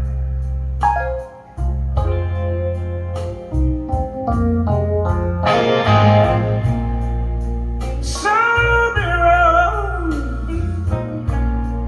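Blues song played through hi-fi loudspeakers: a singing voice over guitar, bass and a steady drum beat, with a brief drop in loudness about a second in.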